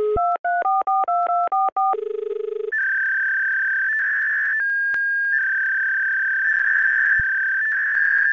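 Telephone touch-tone dialing heard through a phone line: about seven quick two-note keypad beeps, then a short low buzzing tone, then a long steady high-pitched line tone with hiss.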